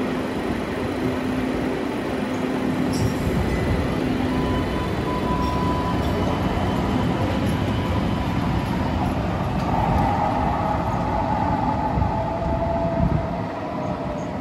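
MBTA Green Line light-rail trains running on street track close by: a steady rumble of wheels on rail with electric motor hum and whine. A higher whine comes in about four seconds in, and a brighter one about ten seconds in.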